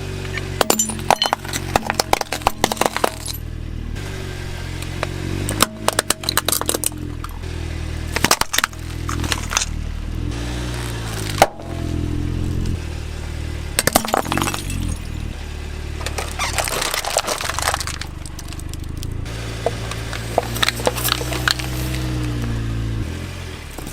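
Plastic toy cars and a toy excavator clattering and knocking together in repeated clusters of clicks, over a steady low droning hum that bends in pitch now and then.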